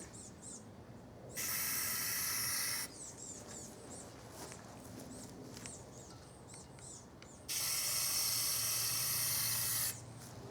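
Aerosol spray paint can spraying in two bursts: a short one of about a second and a half, then a longer one of about two and a half seconds near the end.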